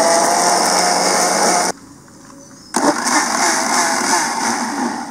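Preethi Zodiac mixer grinder blending dragon fruit with milk and sugar, running with a steady whine. It switches off after about two seconds and starts again about a second later for a second short run: it is run in brief pulses so that the dragon fruit seeds are not ground.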